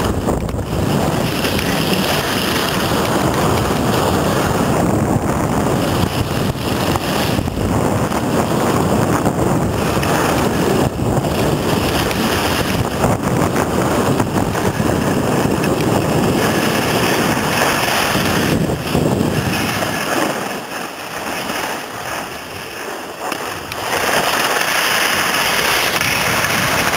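Wind rushing over the microphone of a skier's camera on a fast descent, mixed with the scrape of skis on hard-packed snow. It eases for a few seconds near the end, then picks up again.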